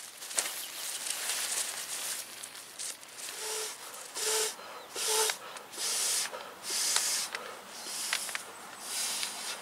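Inflatable sleeping pad being blown up by mouth through its valve: a breathy hiss of air with each breath, about one a second, starting about three seconds in.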